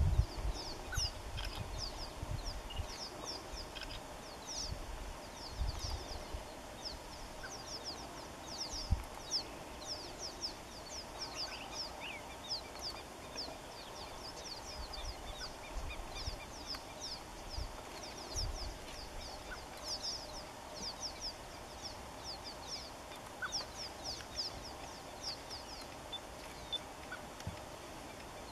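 Bush ambience of birds chirping: many short, high-pitched, falling chirps repeat all through. Low rumbles and thumps come and go beneath them, the loudest about nine seconds in.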